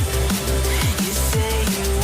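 Background electronic music with a heavy bass beat and falling bass drops.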